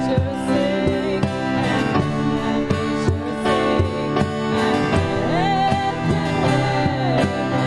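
A live worship band playing a song: acoustic guitar, grand piano and another guitar over a steady cajón beat, with a woman singing lead into a microphone.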